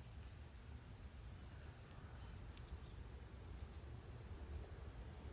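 Late-summer insect chorus: a steady, faint, high-pitched trilling that does not change, with a low rumble underneath.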